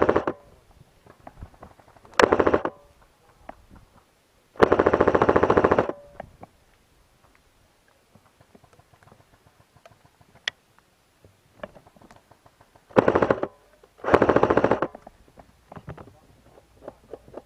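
Airsoft guns firing full-auto in five rapid bursts. The longest burst runs over a second, and there is a long pause between the third and fourth bursts.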